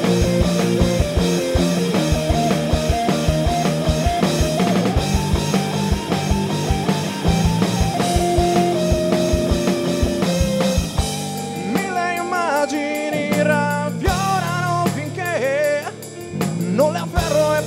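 Rock band's instrumental passage between sung lines, with drum kit and bass driving steady beats. About eleven seconds in the drums mostly drop out, leaving a lead melody with bends and vibrato over sustained chords.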